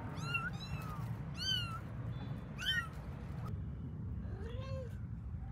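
Young kittens mewing: four short, high, thin cries in the first three seconds, then a lower meow just after the middle.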